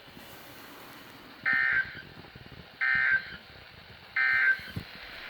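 NOAA Weather Radio SAME end-of-message code: three short, identical warbling data bursts about 1.3 s apart, marking the end of the required weekly test, heard over faint radio hiss.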